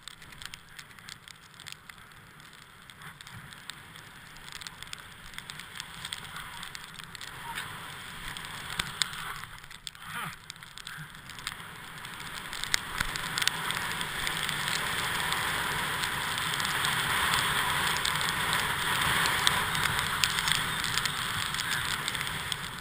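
Skis sliding over packed snow: a steady hiss with small scrapes and clicks from the snow under the skis, growing louder over the second half.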